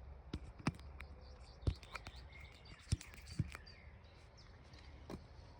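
Faint outdoor background with a few sharp knocks, the loudest about 1.7 and 3 seconds in, and small bird chirps; no chainsaw engine is running.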